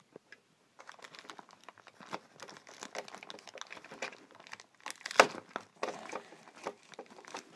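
Thin clear plastic wrapping crinkling and crackling as hands pull it off a toy train coach. The crackles start about a second in, and the sharpest comes about five seconds in.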